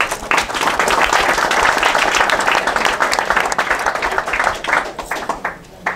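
Audience applauding: many hands clapping together, swelling in the first second and dying away near the end.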